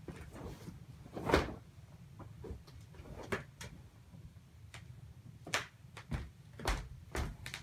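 Bedding being handled and spread over a bed: a string of short rustles and soft thumps, the loudest about a second and a half in.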